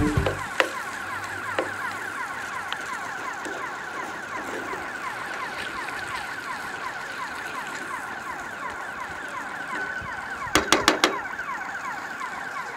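Birds chirping steadily outdoors in a dense chorus of quick falling chirps. Near the end come four quick metallic taps, a ladle knocked against the rim of a steel wok.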